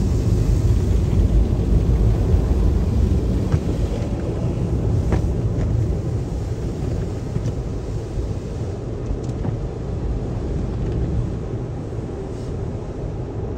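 Automatic car wash tunnel heard from inside the car's cabin: a steady low rumble of the wash equipment and water, with soft-cloth strips rubbing across the roof and windshield and a few faint knocks, easing off slowly.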